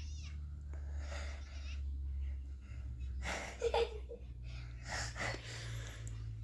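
A child's stifled giggling: short breathy bursts of laughter a few times, the loudest about three and a half seconds in, over a low steady hum.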